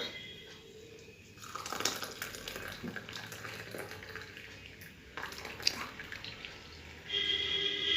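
Hot herbal decoction being poured through a strainer into a tumbler: liquid trickling and dripping, with a short ringing tone near the end.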